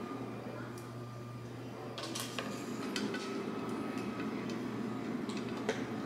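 A few light clicks and clinks of small items being handled, a cluster about two seconds in and several more near the end, over a steady low hum.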